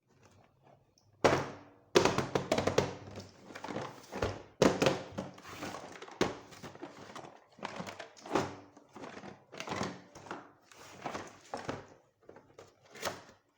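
Small plastic toy kitchen pieces being handled and set down: a run of sharp knocks and clatters, the loudest a few near the start, then lighter taps and rattles.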